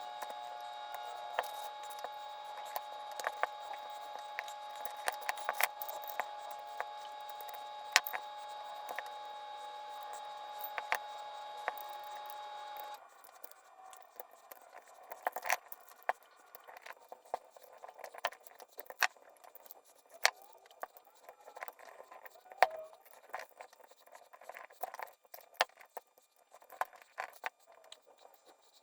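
Small metal parts and hand tools clicking and tapping during brake caliper reassembly: pads, pins, springs and screws being fitted. For roughly the first half a steady multi-tone hum runs under the clicks, then cuts off suddenly.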